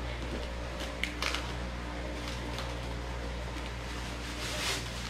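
Faint crackling of plastic wrapping as it is peeled and tugged off a boxed toy piece, in short rustles about a second in and again near the end, over a steady low hum.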